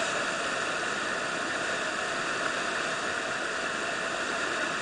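River whitewater rapids rushing steadily, an even roar of churning water.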